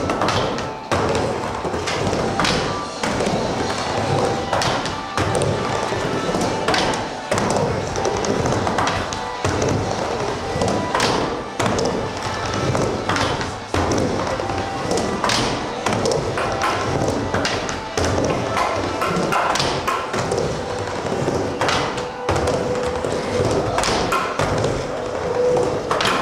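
Music with a beat, mixed with repeated sharp thuds and taps.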